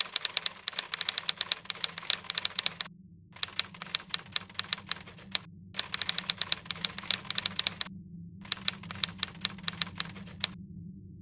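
Typewriter keys clacking in rapid runs, broken by short pauses every couple of seconds, over a low steady hum.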